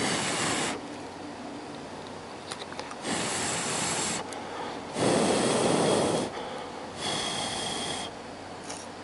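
Four puffs of breath, each about a second long, blown onto freshly applied solder at the tip of a radio's telescopic antenna to cool and set it. The third puff, about five seconds in, is the loudest.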